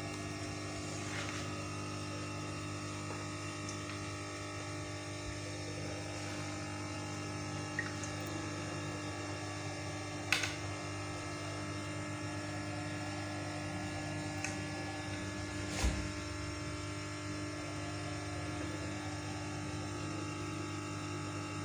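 A steady electrical hum in a small room, with a couple of brief clicks about ten and sixteen seconds in.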